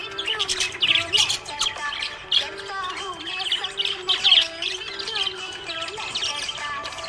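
Budgerigars chirping and warbling rapidly and continuously, over background music with a held, stepping melody.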